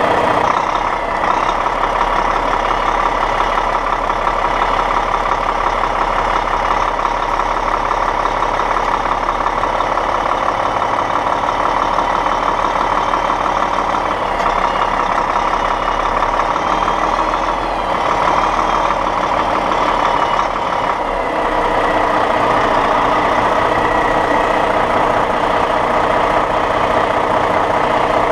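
Big-rig diesel engine running steadily, heard close up from the truck's front bumper, with a few small shifts in pitch.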